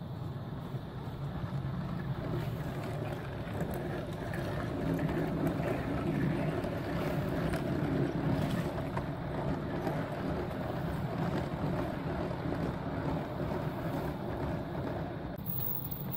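Motorized LEGO train running on plastic LEGO track: a steady electric-motor drone with wheel rumble. It grows louder through the middle as the train passes and eases off toward the end.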